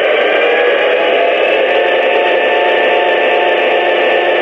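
Onboard sound system of an Atlas O 3-rail EMD F7 model locomotive playing a steady diesel engine running sound through its small speaker, thin in the bass and top.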